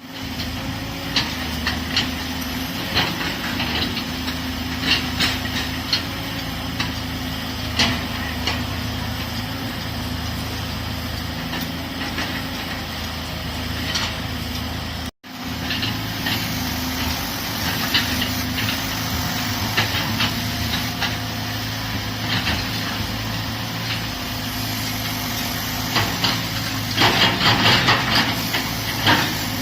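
Excavator diesel engine running steadily, with intermittent sharp metal clanks and knocks over it and a quick run of clattering near the end.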